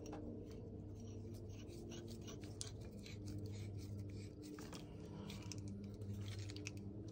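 Faint clicks and scrapes of metal pipe fittings being handled and screwed together by hand, over a steady low hum.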